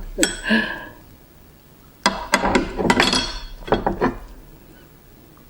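Hard clinks and clatter of oyster shells and tableware on a plate. There are two sharp clinks in the first second, then a busier run of clattering from about two seconds in until about four seconds in.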